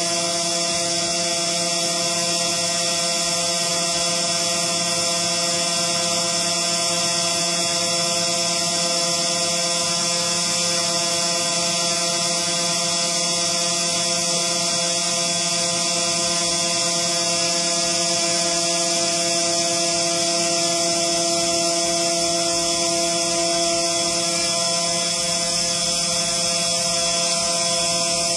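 CNC engraving machine running: a steady whine of several held tones over a hiss.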